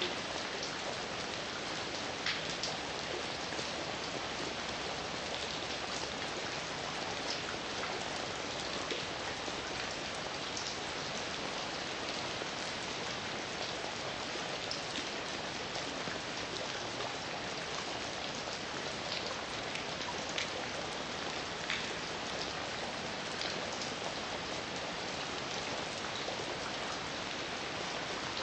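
Heavy rain falling steadily, with scattered individual drops landing as distinct ticks over an even hiss.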